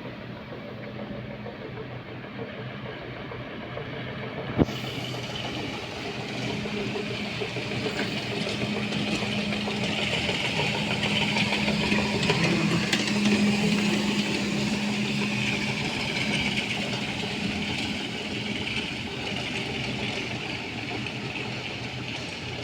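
Floor-scrubbing machine running with a steady hum and whir, growing louder in the middle stretch and then easing off a little, with one sharp click about four and a half seconds in.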